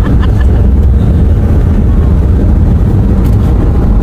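Steady low rumble of a car driving along a wet road, heard from inside the cabin.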